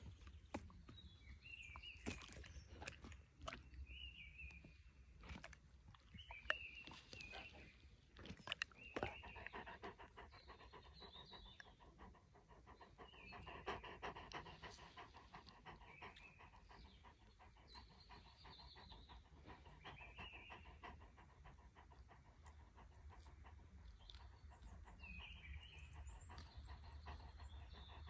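Gordon Setter panting softly and steadily with its mouth open, while small birds chirp now and then in the background. A few sharp clicks come in the first several seconds.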